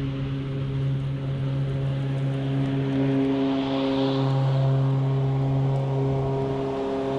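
Toro Revolution Grandstand battery-powered mower running while mowing grass, its electric motors giving a steady hum of several even tones with a hiss over it that swells briefly about halfway through.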